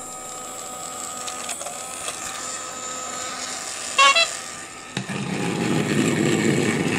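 Battery-powered Thomas & Friends toy engine (Nia) running, its small motor and gears making a steady buzz from about five seconds in. Before that there are faint steady tones, broken by a short, loud chirp about four seconds in.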